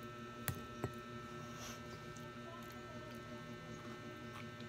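Steady electrical hum, with two sharp clicks about half a second in, a third of a second apart.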